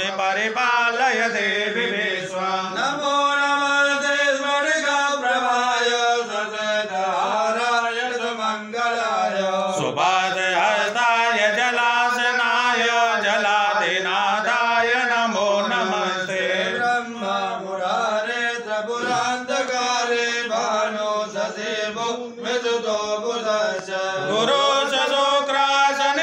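Hindu priests chanting Sanskrit hymns in a continuous, melodic recitation.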